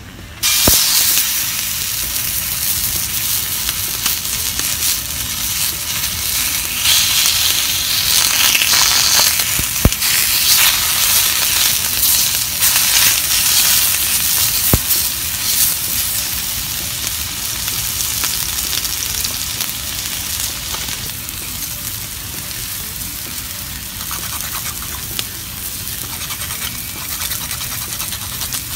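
Beef steaks sizzling loudly in a hot frying pan. The sizzle starts suddenly about half a second in as the meat goes in, then eases slowly, and two sharp clicks break through it.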